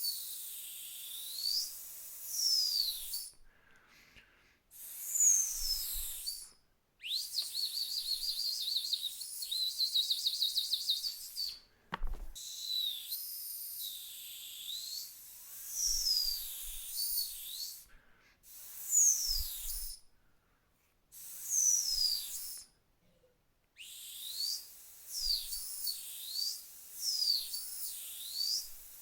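A high-pitched dog whistle blown in short, repeated blasts that glide in pitch, in groups with silent pauses between. In the middle comes a long, rapid trill, and a single sharp click about twelve seconds in.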